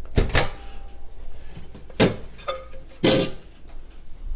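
Microwave oven door clicking open, then a few knocks and a clunk as the heated cup is taken out.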